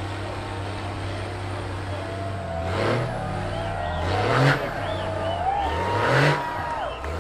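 Rock crawler's engine running steadily, then revved hard three times in quick succession, each rev rising in pitch and falling back, as it climbs a steep rock chute towing another vehicle under heavy load.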